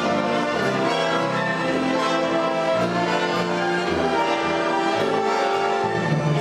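Symphony orchestra playing, with strings and brass holding full chords that change every second or so.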